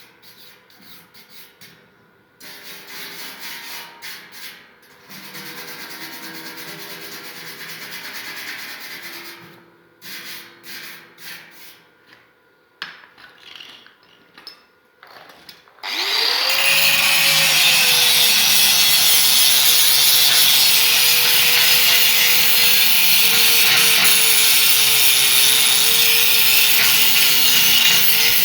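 Stop-start scraping and rubbing, then a handheld power tool's motor spins up about sixteen seconds in and runs steadily under load, cutting or grinding with a steady whine.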